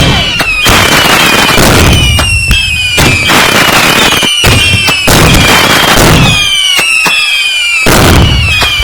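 Fireworks going off in quick succession: loud bangs and crackling bursts about once a second, with high whistles that fall in pitch between them.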